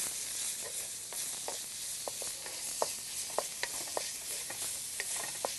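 Minced pork and garlic sizzling in hot oil in a wok, with a steady hiss, while being stirred: a utensil knocks and scrapes against the wok many times at an uneven pace.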